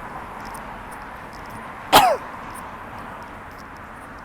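A woman's single sharp cough about halfway through, brief and falling in pitch, over a steady background hiss.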